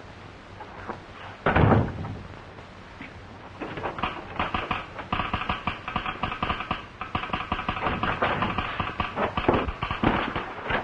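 A loud thud about a second and a half in, then a telegraph key tapping out Morse code in rapid clicks, a message being sent over the wire.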